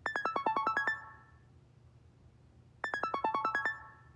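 An iPhone ringing with an incoming call: two bursts of its ringtone, each a quick run of about ten bright electronic notes, the second starting just under three seconds in.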